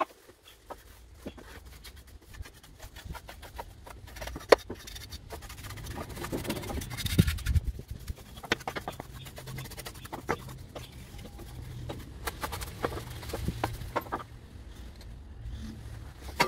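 Stiff-bristled hand brush sweeping sawdust off a mitre saw's metal table and housing: irregular scratchy brushing strokes, with a sharp knock about four and a half seconds in.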